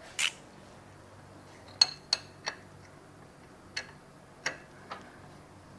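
About seven sharp metallic clicks at irregular intervals: a hand tool working the single screw that holds the winch cable to the winch drum.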